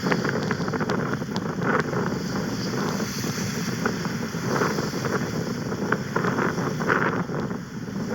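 Strong wind buffeting the phone's microphone, over the wash of surf, with a few short crackles scattered through.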